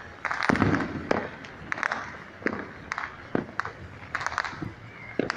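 New Year fireworks and firecrackers going off across a city in many irregular bangs and pops, thickest in the first second.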